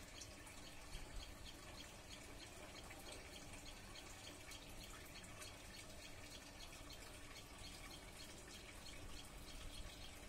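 Near silence: faint outdoor ambience with soft, irregular ticks.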